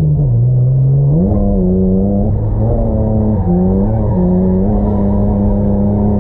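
Nissan Skyline R31's RB30E straight-six engine heard from inside the cabin under throttle. The revs drop, then climb about a second in, dip briefly twice around three to four seconds in, and then hold high and steady.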